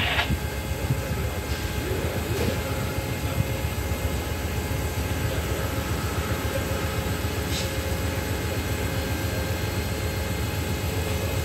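Steady low rumble and hum of a standing Amtrak passenger train with its diesel locomotives idling. A loud hiss cuts off right at the start.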